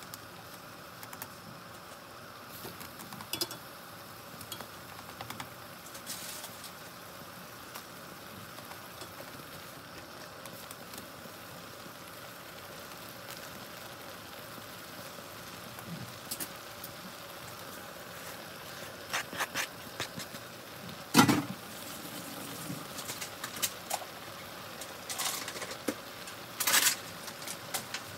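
Ramen broth simmering in an enameled pan on the stove, a steady bubbling hiss, with light clicks and taps of wooden chopsticks against the pan and noodles. One sharp knock about three-quarters of the way through, with a few quicker clicks around it.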